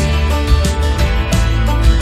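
Background music: a country-style tune led by plucked acoustic guitar.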